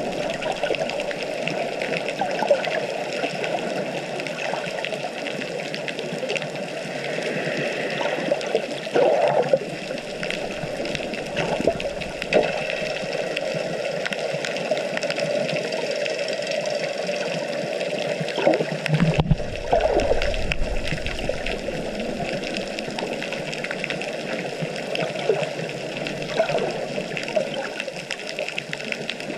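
Water rushing and splashing, heard underwater through a waterproof camera while swimming, with a louder, deeper whoosh about two-thirds of the way through.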